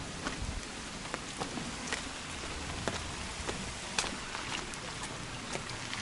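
Footsteps on a wet, muddy mountain trail, soft irregular clicks and scuffs about one or two a second, over a steady hiss of rain.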